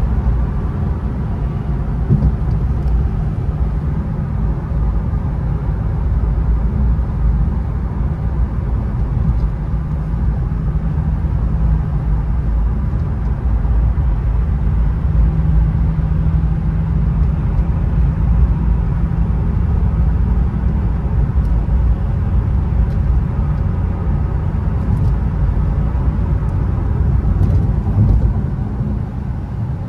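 Inside the cabin of an Infiniti Q50 3.7 on the move: a steady low drone from its 3.7-litre V6 under the rumble of tyres on a snowy road.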